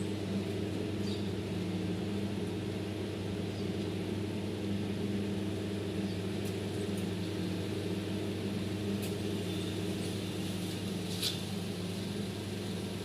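Steady low machine hum that never changes, with a few faint clicks and taps over it.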